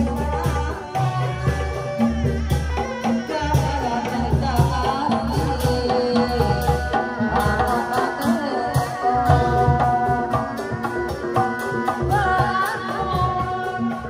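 Sundanese folk music: hand drums beat a steady repeating pattern under a wavering sung melody.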